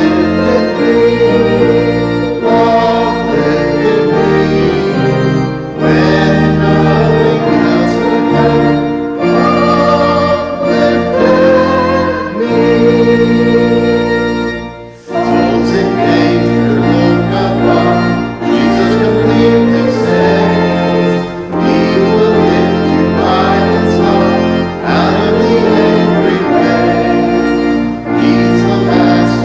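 Church organ playing a hymn in sustained chords, with voices singing along; the music breaks off briefly about halfway through.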